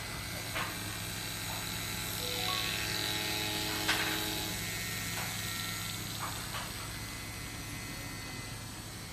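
Small electric motor drive of a CZ50 watchmaker's lathe running with a steady hum during automatic indexing and gear milling, with a few sharp clicks. The whine swells a little near the middle, where the loudest click comes about four seconds in.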